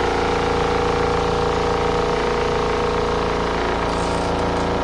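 Compact RV washing machine running its final spin, the motor giving a steady hum with several fixed pitched tones.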